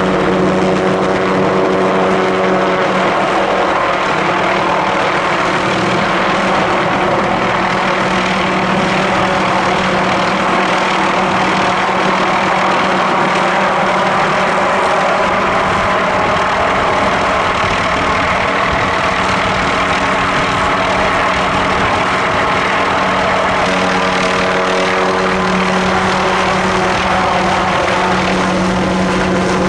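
MD Helicopters MD530F running close by: the turboshaft engine and rotors make a loud, steady drone with a strong low hum, its higher tones fading through the middle and growing stronger again near the end.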